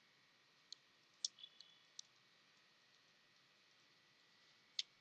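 A few faint, scattered keystrokes on a computer keyboard, about six short clicks, most in the first two seconds and one near the end.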